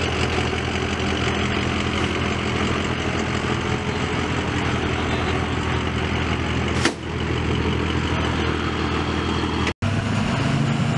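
Truck engine idling steadily, with a single sharp click about seven seconds in. Near the end the sound cuts abruptly to another engine running.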